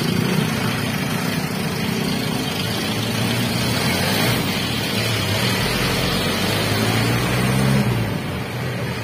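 Street traffic heard from a bicycle: engines of jeepneys, motorcycles and cars running close by over a steady road noise, with one engine's hum growing louder around six to eight seconds in as a jeepney draws alongside.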